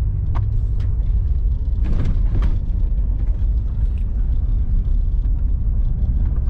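Steady low rumble of a car driving over a rough, potholed dirt trail, heard from inside the cabin, with a few brief knocks and rattles.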